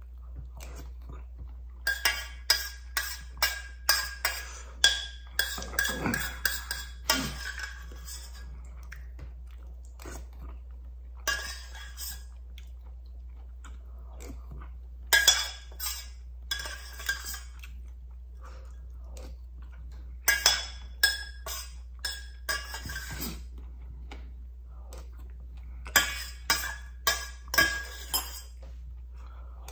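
A metal spoon clinking and scraping against a stainless steel saucepan while eating from it, in runs of quick clinks with pauses between them.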